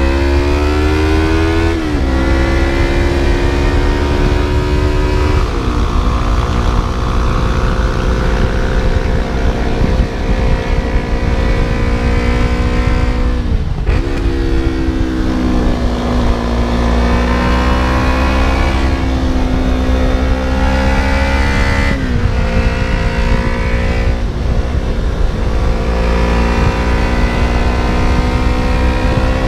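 Yamaha YZF-R3's parallel-twin engine heard from the rider's seat while riding, its pitch climbing slowly and then changing abruptly at a few gear changes, over steady low wind rush on the camera.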